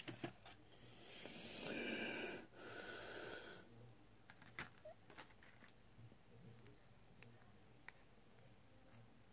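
Faint small clicks of the plastic parts of an Opel remote key shell and its circuit board being handled. About a second in comes a hiss with a high whistling tone, in two parts lasting about two and a half seconds.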